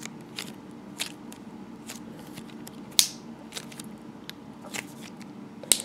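Crazy Aaron's thinking putty being squeezed and kneaded in the hands: soft, irregular sticky clicks and small pops, the sharpest about three seconds in and again near the end.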